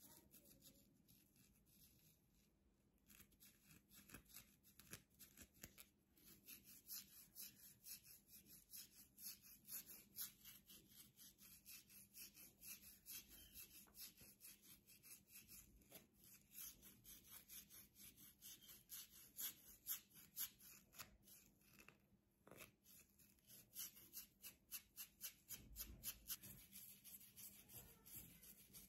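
Plastic fine-tooth comb scratching over a flaky, dandruff-covered scalp through short coiled hair in quick, faint, repeated strokes, several a second, scraping loose dandruff flakes.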